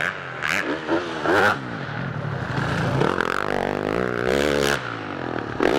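Yamaha YZ450F four-stroke single-cylinder motocross bike revving hard, its engine note rising and falling as the rider works the throttle over jumps. Several short, harsh blasts ride on top of the engine.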